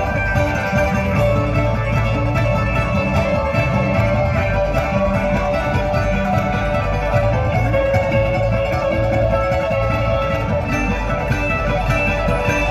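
Bluegrass string band playing live: acoustic guitars, banjo and upright bass picking together.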